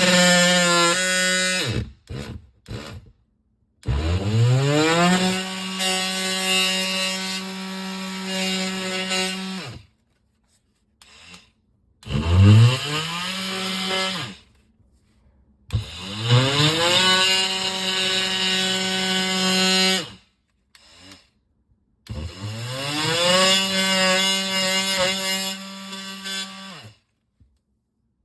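Electric power tool cutting through sheetrock, run in five short bursts. Each time it winds up quickly to a steady pitch, cuts for a few seconds, then stops.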